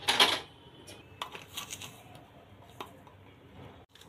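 A short rustling scrape, then a few faint scattered clicks and taps of steel kitchen utensils being handled.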